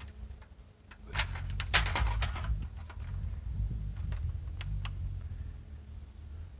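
Low wind rumble on the microphone, with scattered clicks, scrapes and rustles of forks, knives and foil trays being handled during a meal, busiest a second or two in.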